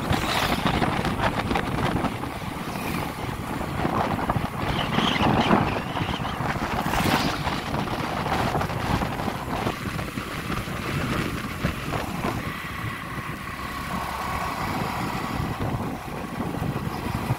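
Steady running noise of a vehicle travelling along a road, with wind buffeting the microphone in a few brief gusts.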